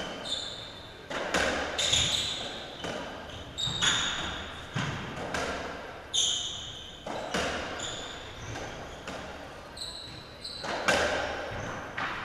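Racketball rally on a squash court: the ball is struck by rackets and smacks off the walls in sharp, echoing cracks roughly every second. Shoes squeak on the court floor between the shots.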